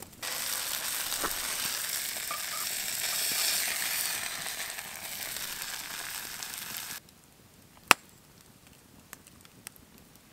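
Egg sizzling in a small frying pan over a campfire: a steady hiss that starts just after the beginning and cuts off suddenly about seven seconds in. A single sharp click follows about a second later.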